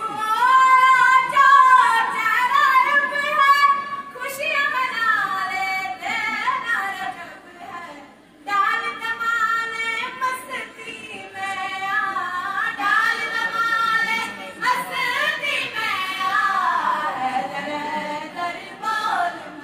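A woman singing a devotional manqabat in praise of Imam Ali, with a brief pause about eight seconds in.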